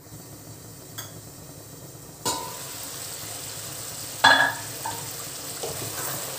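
Palak chicken curry sizzling in an open kadai, the hiss starting abruptly about two seconds in. A little after four seconds a spatula knocks sharply against the pan, then scrapes as it stirs the thick gravy.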